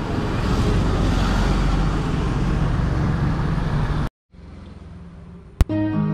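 Steady road traffic noise with a low engine hum. It cuts off suddenly about four seconds in; after a short quieter stretch comes one sharp click, then music begins near the end.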